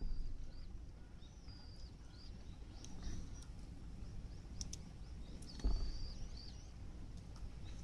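A knife cutting through a squid onto a wooden cutting board: a few dull knocks, the strongest about two-thirds of the way in. Short, high chirps repeat throughout in the background.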